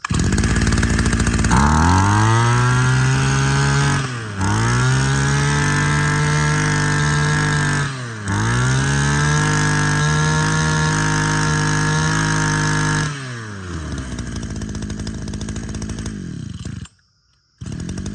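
Tanaka 20cc two-stroke brush cutter engine (30 mm bore) revved up three times, each held high for three to four seconds and let fall back. It then idles, with a brief dropout near the end.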